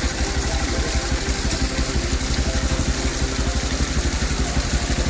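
Motorcycle engine running steadily with a fast even pulse.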